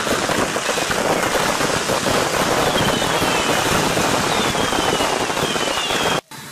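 A mass of fireworks going off at once in a dense, continuous crackle of bangs. Three high whistles slide down in pitch partway through. The sound cuts off suddenly near the end.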